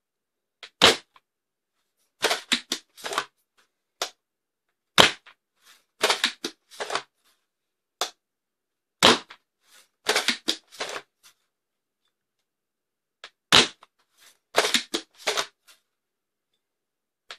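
Foam dart blaster fitted with a Dart Zone SCAR barrel attachment, fired four times about four seconds apart, each shot a sharp snap. Between shots there are quicker clusters of clicks and clacks as the blaster is handled and reloaded.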